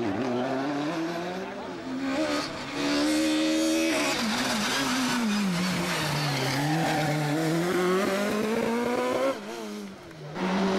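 Rally car engines revving hard through a hairpin, the pitch climbing and falling with each gearshift and lift; in the middle it is a Peugeot 306 Maxi kit car accelerating in one long climb. The pitch drops suddenly near the end, with a brief dip in loudness.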